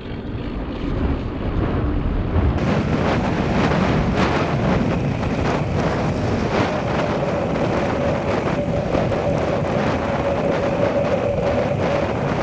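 Wind buffeting the camera microphone on a moving mountain bike, mixed with the rumble and rattle of the bike rolling over rough grass. A faint steady whine joins in a little past halfway.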